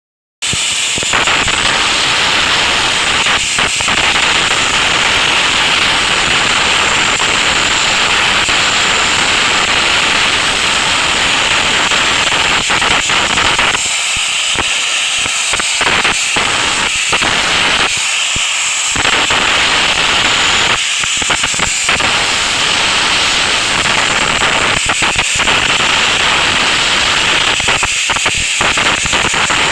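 Abrasive blasting nozzle running continuously: a loud, steady compressed-air hiss whose low rumble drops away briefly a few times.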